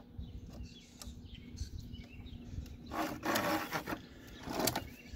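A 5/8-inch threaded steel axle rod sliding through a PVC pipe spacer in a plastic milk crate. It makes scattered clicks and scrapes, with a longer scrape about three seconds in and a shorter one near the end.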